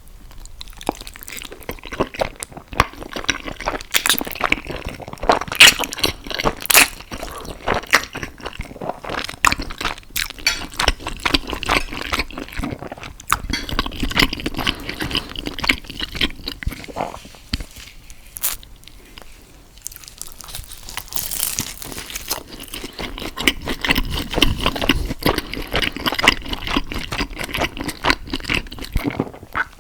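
Close-miked eating: a person biting and chewing food, with a dense run of quick, irregular mouth clicks and a short lull about two-thirds of the way through.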